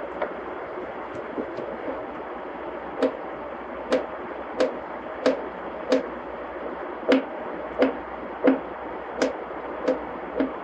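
A steady whirring hum with a sharp tick or tap repeating about every two-thirds of a second. The taps are faint and uneven at first and become louder and more regular after about three seconds.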